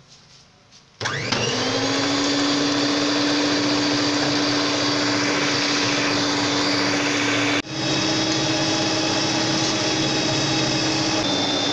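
Electric hand mixer starting about a second in and rising to speed, then beating eggs, sugar and margarine into cake batter in a stainless steel bowl with a steady motor whine. It breaks off abruptly about two-thirds of the way through and resumes a little higher in pitch.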